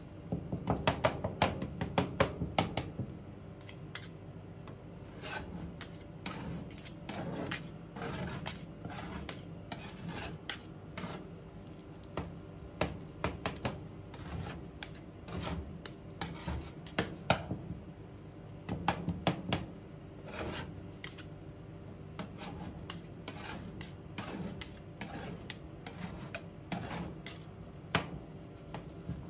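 Two metal spatulas chopping and scraping ice cream base on a stainless steel cold plate for rolled ice cream: irregular sharp metal taps and scrapes as the mixture freezes into thick clumps. The taps are densest and loudest in the first few seconds, over a low steady hum.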